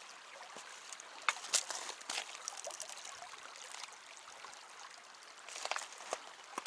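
Shallow creek trickling over rocks, with a scattering of short clicks and knocks from footsteps on the creek stones during a crossing.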